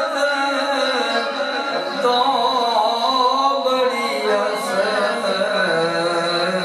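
A man reciting a Punjabi naat in a sustained, melodic voice over a microphone and loudspeakers, with a faint steady high whine underneath.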